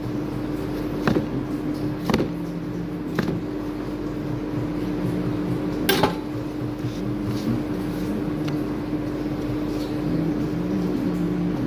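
Steady machine hum from kitchen equipment, with a few sharp clicks and knocks of things being handled. The loudest knock comes about six seconds in.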